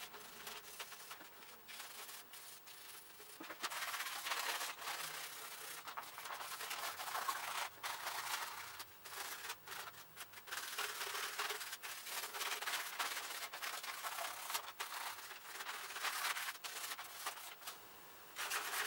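Pencil rubbed back and forth over paper laid on the underside of a milling-machine vise, making a rubbing of the vise's base: a dry, scratchy rubbing that gets steadier and louder about four seconds in, with brief pauses between strokes.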